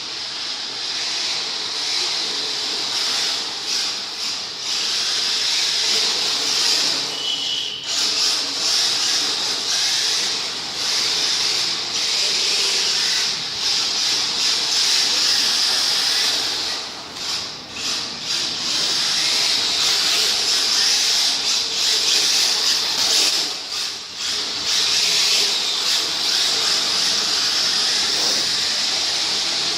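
Radio-controlled model car running, a steady high-pitched hiss with a few brief dips where it eases off.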